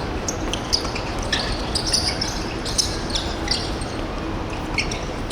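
Court shoes squeaking on an indoor sports hall floor during korfball play: many short, sharp squeaks scattered through, over a steady hall background.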